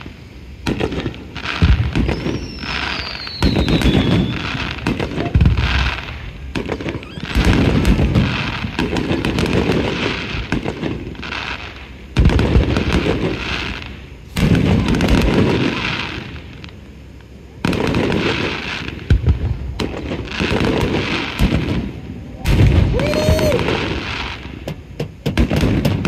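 Aerial fireworks shells going off in quick succession: sharp bangs and crackling, each trailing into a low rumbling echo. A short falling whistle sounds about two seconds in.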